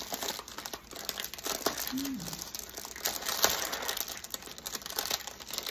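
Clear plastic packaging sleeve crinkling and crackling as a rolled canvas is handled and slid out of it.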